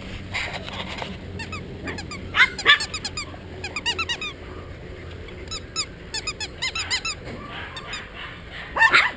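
Golden retriever puppies playing, giving short, high-pitched yips and squeals in quick runs, with a couple of louder yelps about two and a half seconds in and again near the end.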